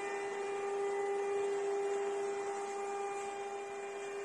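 The Z-axis stepper motors of a SUNLU S9 Plus 3D printer whine with one steady tone during a move in its auto-leveling routine, stopping at the very end. The owner finds the Z axis the loudest part of the printer and puts it down to Z-axis drivers that are not the quiet kind.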